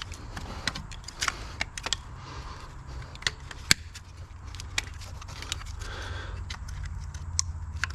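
Plastic clicks and rattles of a VW Tiguan's coil-pack wiring harness being handled and worked back into place over the coil packs: many short, sharp clicks scattered throughout, over a steady low hum.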